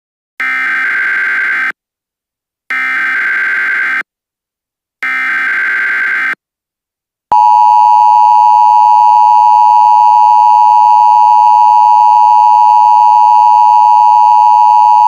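Emergency Alert System SAME header: three identical screeching data bursts about a second apart, followed by the loud, steady EAS attention tone that sounds before the voice message.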